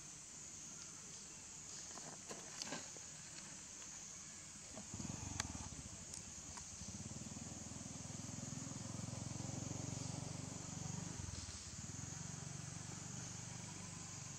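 Outdoor ambience: a steady, high-pitched insect drone. A low rumble comes in about five seconds in and runs on, with a few light clicks before it.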